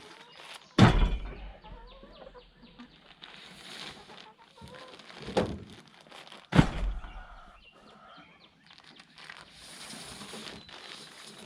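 Two heavy thumps about six seconds apart, with a smaller knock between them and quieter rustling and knocking throughout.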